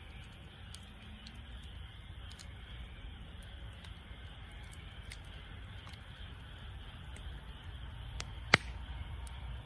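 Wood fire burning in a Snow Peak fire pit, with scattered faint crackles and one sharp, loud pop near the end.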